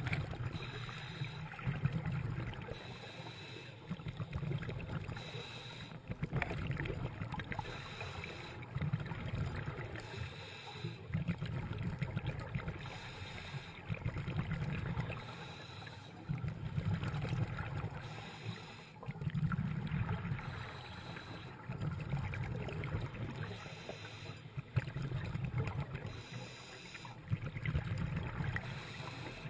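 Scuba diver breathing through a regulator, picked up underwater by a camera in its waterproof housing: rushes of breath and exhaled bubbles swelling and fading about every three seconds.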